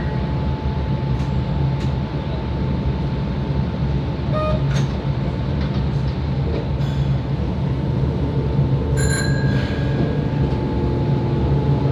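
Kobe Municipal Subway 3000 series car, with a Hitachi GTO inverter drive, heard from inside while running: a steady low rumble from the wheels and track, with a thin steady whine above it. A few short ringing clicks come at about 4.5, 7 and 9 seconds in.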